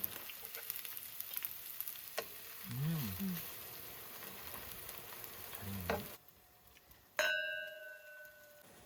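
Food sizzling and crackling in a hot pan, with two short vocal sounds, until it cuts off suddenly about six seconds in. About a second later a single ringing chime-like tone sounds and fades over about a second and a half.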